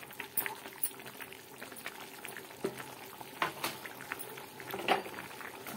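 Rice, mushroom and spiced water for biryani boiling hard in a pan on full gas flame: steady bubbling and popping, with a spatula stirring through it and a few louder clicks.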